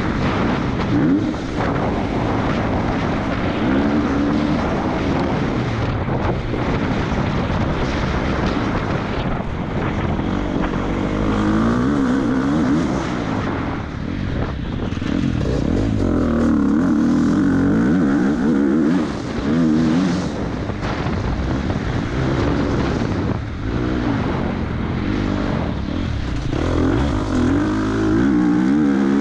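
Husqvarna FC 250's single-cylinder four-stroke motocross engine, heard from on the bike, running hard and rising and falling in pitch again and again as the throttle is worked through the gears.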